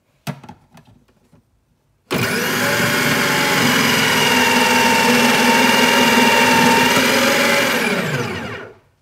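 A knock, then an electric food processor switching on about two seconds in and running steadily with a whine while its grating disc shreds soft apricots and an apple pushed down the feed tube. It switches off near the end and its motor's pitch falls as it spins down.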